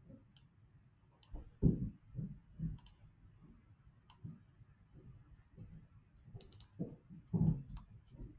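Irregular, faint clicks of a computer mouse, with soft low knocks from handling it on the desk, while drawing on a chart.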